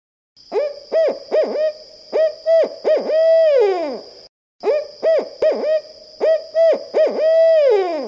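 Barred owl hooting in its 'who cooks for you, who cooks for you-all' rhythm: two phrases of short hoots, each ending in a long drawn-out hoot that falls away in pitch.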